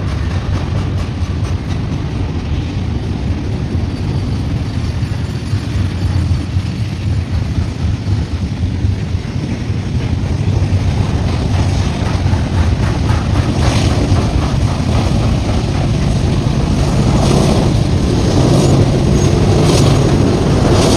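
Double-stack container freight train rolling past at speed: a steady low rumble of wheels on rail that grows louder in the second half, with sharp wheel clicks over the rails.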